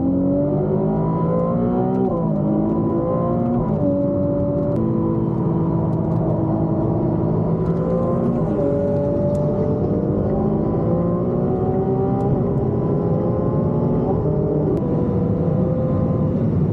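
Supercar engine heard from inside the cabin while the car is driven hard, its revs climbing and then dropping sharply at gear changes several times, over steady road and tyre rumble.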